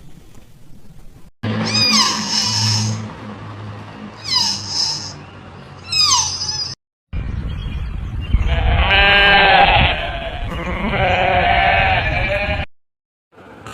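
Animal calls in two spliced clips: three short calls that fall in pitch, then after a brief break a long wavering bleat and a second, shorter bleat.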